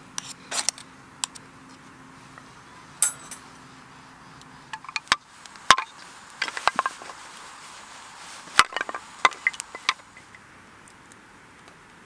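Sharp wooden knocks and clicks at irregular intervals over a steady hiss, as wood is handled. A low hum runs through the first few seconds and stops about five seconds in.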